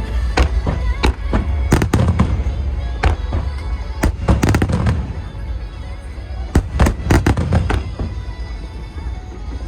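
Aerial fireworks bursting in rapid volleys of sharp bangs, bunched in three clusters with brief lulls between, over a low rumble, with music playing along.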